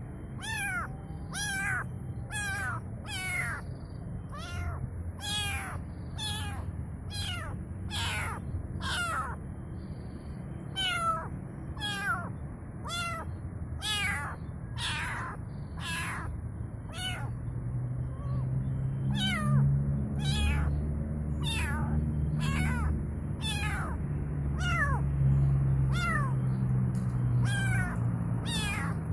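A kitten meowing over and over, high-pitched calls each falling in pitch, roughly one a second: a kitten calling for its mother. A low hum runs underneath, stronger in the second half.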